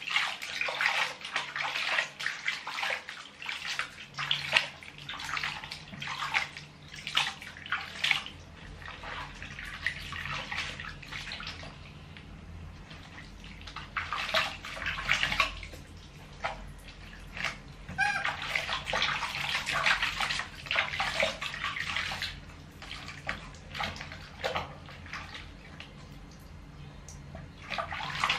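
Soapy water splashing and sloshing in a plastic basin as hands scoop and pour it over a baby monkey being bathed. The splashing comes in several bouts with short quieter lulls between.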